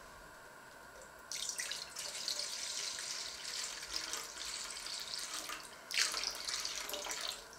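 Liquid pouring from a plastic measuring jug into a stainless steel bowl, splashing on the metal. The pour starts about a second in, falters briefly, surges again and stops just before the end.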